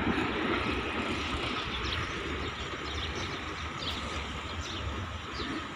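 Steady rumble of a passenger express led by an HGMU-30 diesel locomotive that has just passed, receding into the distance and growing slowly quieter.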